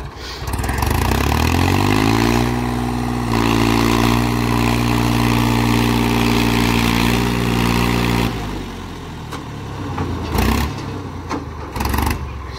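Powertrac diesel tractor engine revving up and holding high revs under load as it hauls a loaded trailer up a steep slope. The revs drop away about eight seconds in, followed by a rougher, uneven sound with scattered knocks.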